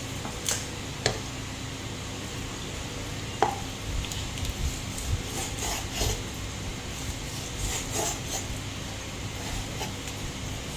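Scattered clinks and knocks of kitchen utensils and dishes being handled during food preparation, over a faint steady hum.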